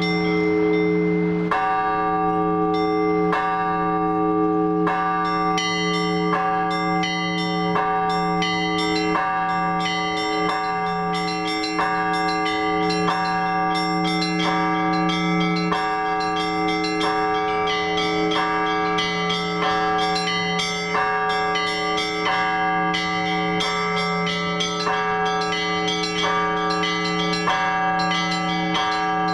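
Orthodox church bells rung together in a full peal (trezvon): a large bell is struck about every one and a half seconds while several smaller bells ring in a rapid, steady pattern over it.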